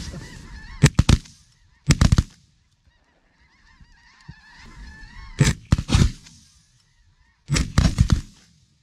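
A volley of shotgun blasts from several hunters firing together: a shot about a second in, a quick cluster around two seconds, three shots at about five and a half to six seconds, and another rapid cluster near the end. Between the shots a flock of snow geese calls continuously overhead.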